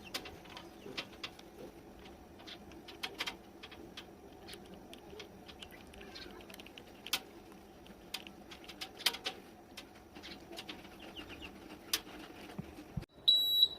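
Irregular small clicks and taps, dozens of them, scattered over a faint steady background. Near the end a loud, high electronic beep starts.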